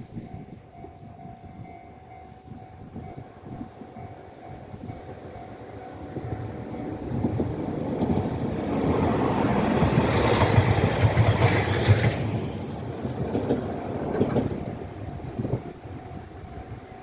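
A Tosaden Kotsu tram passing over the level crossing: its running noise builds from about six seconds in, is loudest around ten to twelve seconds, and fades away, with a few sharp wheel knocks as it clears.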